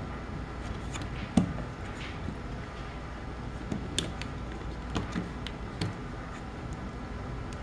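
Scattered sharp clicks and snaps of the plastic cap of an HP 91 ink cartridge being cut with a hand cutting tool, the loudest about a second and a half in.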